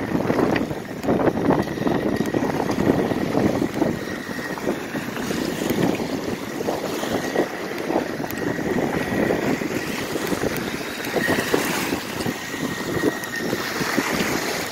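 Wind buffeting the phone's microphone and small waves breaking on the shore, with the RC boat's motor heard as a faint steady high whine that grows stronger in the second half.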